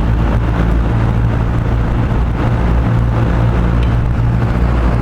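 Vintage McGraw-Edison Tempmaster 16-inch metal box fan running on low: a steady rush of air over a low hum from its four-pole shaded-pole motor.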